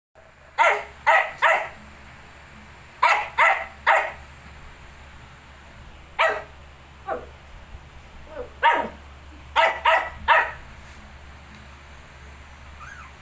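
A small dog barking: about a dozen short, sharp barks, mostly in quick runs of three, each falling slightly in pitch. A steady low hum runs underneath.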